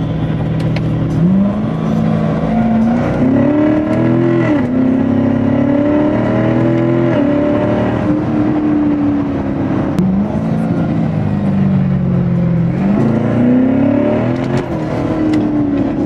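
Chevrolet Corvette C7's V8 under hard acceleration, heard from inside the cabin. Its pitch climbs and drops back at gear changes in the first half. It then eases off, revs up briefly once more and drops again near the end.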